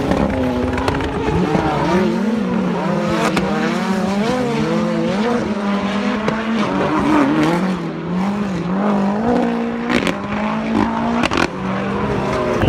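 Rallycross Supercar engines racing on the circuit, their revs rising and falling in quick waves as the cars lift and accelerate, with several sharp cracks, clustered near the end.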